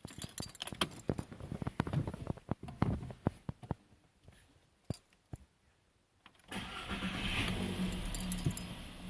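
Irregular clicks and knocks, then a 1.4 TSI petrol engine starting about two-thirds of the way in and running steadily with a low hum, with its accessory belt removed.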